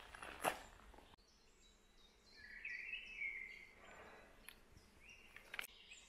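Footsteps on a gravel path, a step about half a second in and another near the end. Between them a bird sings a short warbling phrase with a few high chirps, about two to three and a half seconds in.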